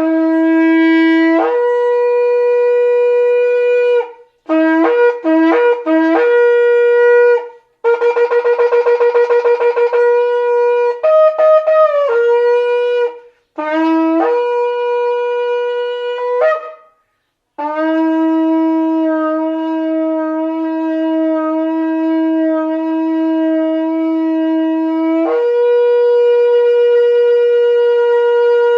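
Shofar blown in a series of calls on two main notes, a low one and a higher one. There are short broken blasts, a stretch of rapid stuttering notes, and a long held low blast that steps up to the higher note and is held to the end.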